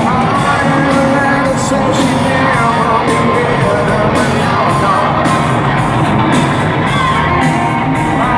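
A live hard rock band playing loud: distorted electric guitars, bass and a steady drum beat under a male lead vocal, heard from within the crowd in a large hall.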